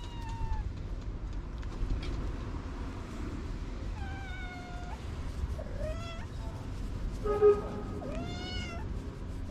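A cat meowing several times, a few short calls spaced a second or two apart, over a steady low background rumble.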